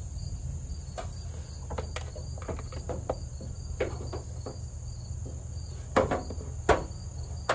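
Scattered light clicks and knocks of hands handling metal parts and battery cables at a Ford Bronco's fender-mounted starter solenoid, the two loudest about six seconds in. Under them runs a steady high-pitched drone and a low hum.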